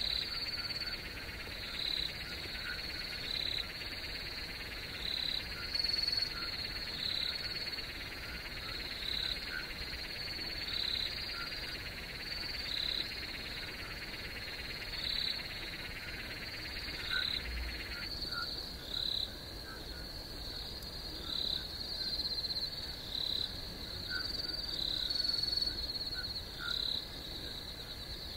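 Night ambience of frogs and crickets: short calls repeating every second or so over a steady high insect trill. A background hiss drops out suddenly about two-thirds of the way through.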